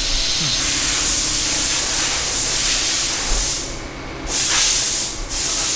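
TIG welding arc hissing steadily, cutting out for about half a second just under four seconds in and again for a moment a little after five seconds.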